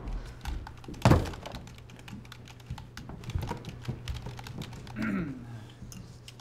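A heavy thump about a second in, then scattered light clicks and taps: typing on a computer keyboard and small taps on a reception counter.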